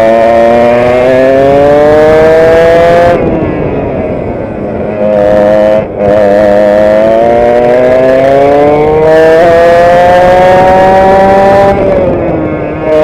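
Vintage direct-drive two-stroke kart engine heard onboard at racing speed, its pitch climbing steadily as it accelerates down the straights. It drops off as the driver lifts for corners about three seconds in and again near the end, with a brief cut just before six seconds.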